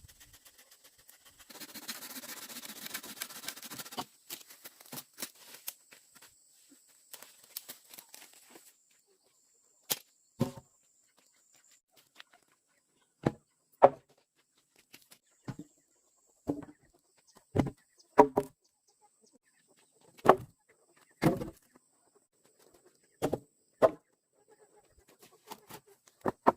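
Rustling for a couple of seconds, then a series of sharp, irregularly spaced knocks, some in quick pairs.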